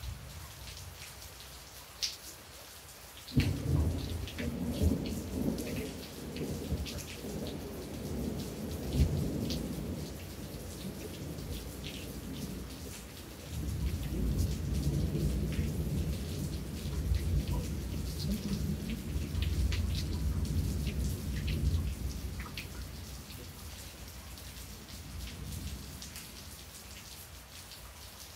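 Thunder over steady rain. A peal starts suddenly a few seconds in and rolls on for several seconds; a second long rumble begins near the middle and fades away toward the end, with raindrops ticking throughout.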